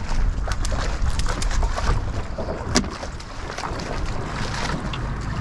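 Wind buffeting the microphone as a steady low rumble, with scattered light clicks and one sharper click a little past halfway.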